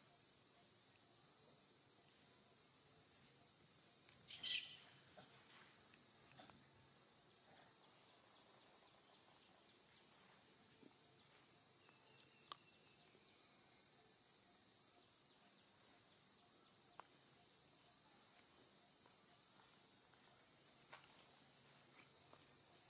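A steady, faint, high-pitched drone of an insect chorus. About four and a half seconds in, a brief high squeak stands out as the loudest sound, and a single sharp click follows about twelve and a half seconds in.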